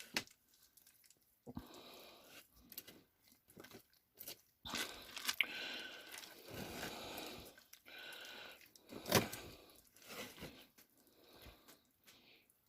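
Faint stirring of thick cake batter with peanut butter and chocolate chips in a Pampered Chef Rock Crok dutch oven. The stirring comes and goes in uneven strokes, with a sharper knock of the utensil against the pot about nine seconds in.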